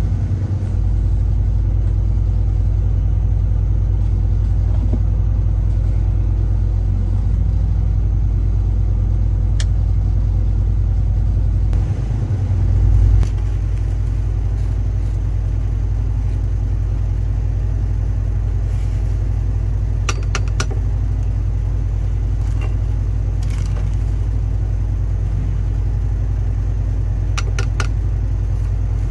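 A steady low motor-like hum throughout, with a few light clicks and rustles in the second half as ground coffee is spooned from a plastic zip bag into a paper filter.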